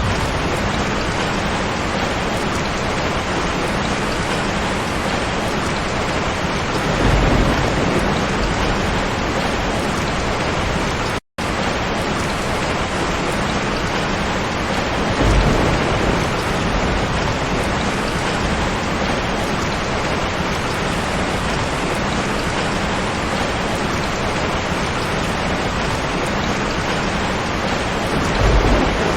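Steady heavy rain, with low thunder rumbles swelling up three times, about a quarter of the way in, about halfway and near the end. The sound cuts out completely for a split second a little over a third of the way in.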